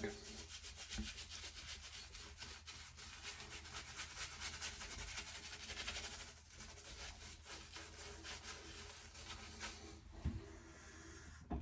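Shaving brush scrubbing and swirling over a wet face coated with shave-stick soap, working up a lather: faint, rapid, scratchy rubbing with a couple of brief pauses.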